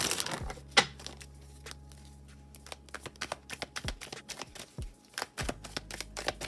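A tarot deck being handled by hand: one sharp card snap about a second in, then scattered soft clicks and flicks as the cards are shuffled and cut. A faint steady electrical hum lies underneath.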